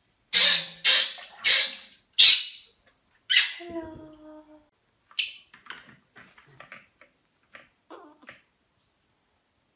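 Baby monkey screaming: five loud, high-pitched cries about half a second apart, then a string of fainter, shorter squeaks that stop near the end.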